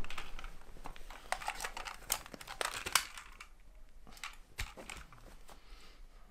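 Close crinkling and crackling of handled plastic with small clicks, dense for the first three seconds and then sparser: handling noise as a phone and its plastic wrapping are worked in the hands.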